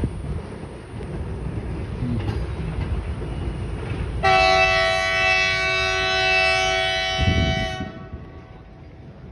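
Freight train of empty flat wagons rumbling along the track. About four seconds in, the locomotive's multi-tone horn sounds one long, loud blast of about three and a half seconds, then stops.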